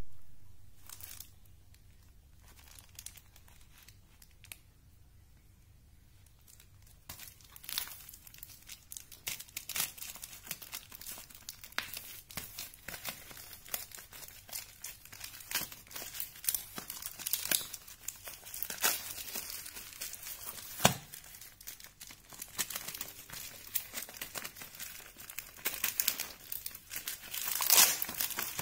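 A black plastic courier bag being cut open with scissors and torn apart by hand, crinkling and tearing with many sharp cracks. It is quiet for the first several seconds, and there is one sharp snap about two-thirds of the way through.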